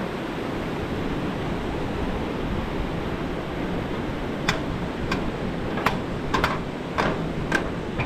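Steady rush of a rocky mountain stream. Starting about halfway through come sharp metallic clacks, roughly one or two a second, of trekking-pole tips striking the steel deck of a footbridge.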